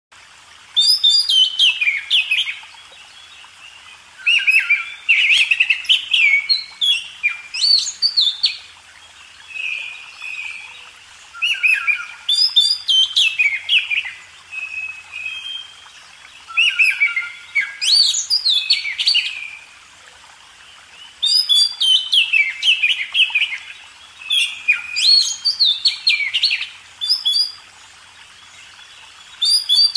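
A songbird singing loudly in repeated phrases of quick, varied chirps and whistles, each phrase lasting a second or two, with short pauses between them.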